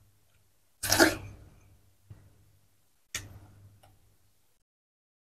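Watermelon being bitten and chewed: a loud, crisp bite about a second in and another just after three seconds, each trailing off into wet chewing, with dead silence between them.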